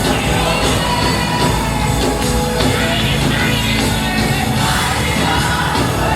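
Live gospel worship music: a band playing with voices singing.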